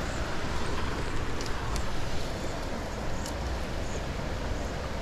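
Steady rushing of creek water, with a low rumble of wind on the microphone and a few faint ticks.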